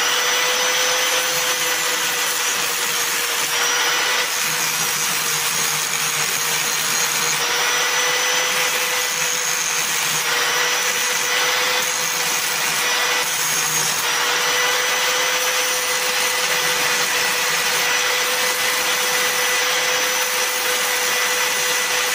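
Electric angle grinder running at a steady high whine while its disc grinds down a fresh weld on a metal bracket, giving the weld its finish. The grinding rasp goes on without a break.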